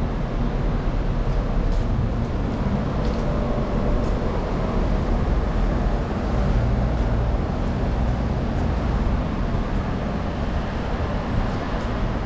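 Steady low rumble of road traffic, with double-decker buses and cars running close by.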